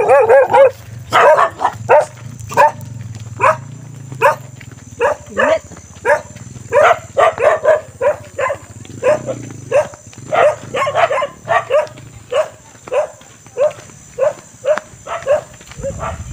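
A dog barking over and over, about two barks a second, without letting up.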